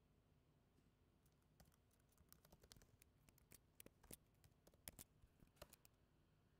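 Faint typing on a computer keyboard: a quick, irregular run of key clicks starting about a second in and stopping shortly before the end.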